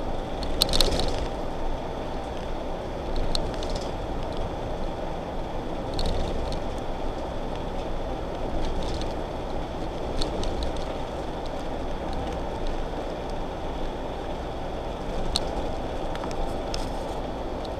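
Motorhome driving along a road, heard from inside the cabin: a steady drone of engine and tyre noise, with a few short clicks or rattles scattered through it.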